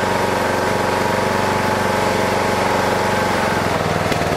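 Lawn tractor's small engine running steadily, its note shifting about three and a half seconds in.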